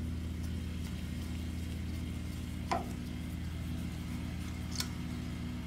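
A steady low hum with two faint light taps, about three and five seconds in: a screwdriver tip touching the alternator's casing bolts as copper paste is dabbed onto them.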